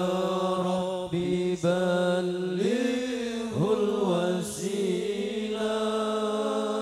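Sholawat being sung: a slow, drawn-out vocal melody with long held notes and sliding turns in pitch.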